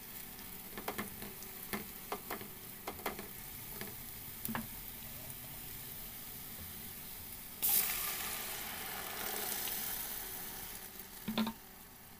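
Onion and green-pepper filling frying in oil in a steel pot, with light scrapes and taps of a silicone spatula stirring it over a steady sizzle. About eight seconds in, a sudden louder sizzle starts as tomato purée hits the hot pot, fading over about three seconds, then a knock near the end.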